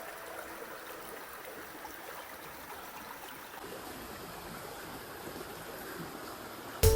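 River water running steadily over the stream bed, a continuous even rush. Background music with drums comes in near the end.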